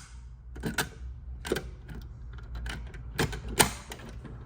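A handful of sharp, irregularly spaced clicks and knocks over a low steady hum.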